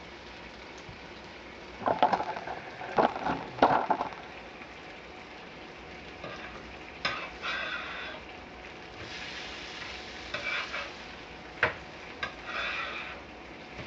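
Pancake batter being stirred with a utensil in a bowl: several short bursts of scraping and clinking, with a sharp click a little before the end, over a steady background hiss.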